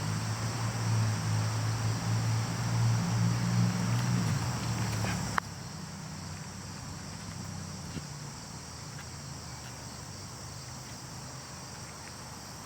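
Steady outdoor insect chorus, an even high trill, over a low steady hum. About five seconds in the hum and overall level cut off abruptly with a click, leaving the insects quieter.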